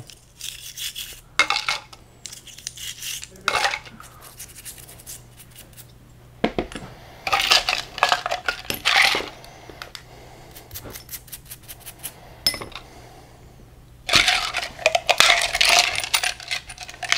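Small metal differential gears and parts clinking and rattling against a glass tub of solvent as they are scrubbed and fished out by hand. The clatter comes in three bunches of quick clicks, with quieter stretches between.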